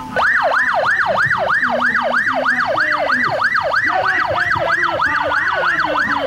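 Police car siren in a fast yelp, its pitch sweeping up and down about three times a second. It starts abruptly and runs without a break.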